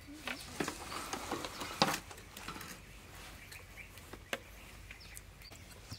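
Kitchen knife knocking on a wooden chopping block as raw chicken breast is cut: a few sharp taps, the loudest about two seconds in. Birds chirp faintly in the background.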